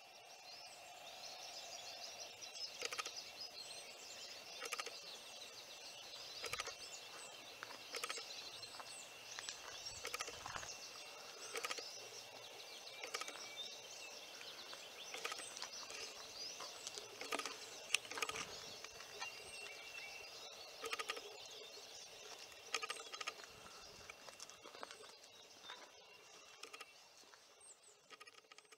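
Faint outdoor ambience: small birds chirping over a steady high thin tone, with soft knocks about every two seconds.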